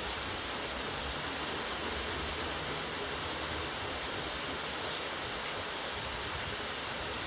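Water rushing and splashing off a turning wooden waterwheel, a steady even noise. A brief high chirp sounds about six seconds in.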